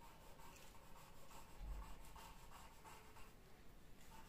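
Pencil scratching on drawing paper in short, quick strokes as grass blades are sketched, faint, about two strokes a second. A soft low bump comes a little before halfway.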